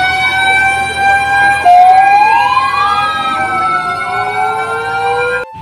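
Fire engine siren wailing at a steady pitch, with a second siren tone sweeping upward about two seconds in; the sound cuts off suddenly near the end.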